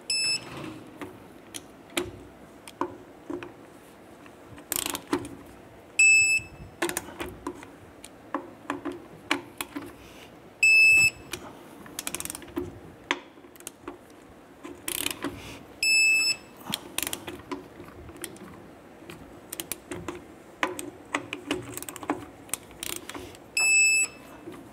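Torque wrench ratcheting and clicking as the wheel's lug nuts are tightened to 100 foot-pounds, with a short high beep five times, one as each nut reaches the set torque.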